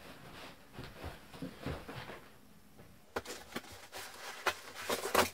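Cardboard monitor box and its plastic and foam packing rustling and scraping as the wrapped screen is worked out of the box, with sharper crinkles and knocks in the last two seconds.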